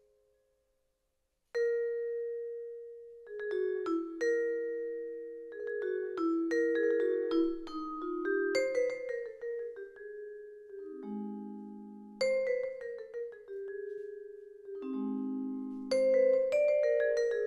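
Tuned mallet percussion, vibraphone and marimba, playing struck notes and chords that ring on after each stroke. The playing starts after about a second and a half of silence, and lower notes come in near the middle and again near the end.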